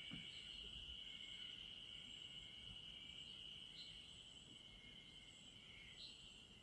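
A faint, steady chorus of insects trilling continuously at a high pitch, with a couple of brief higher chirps partway through.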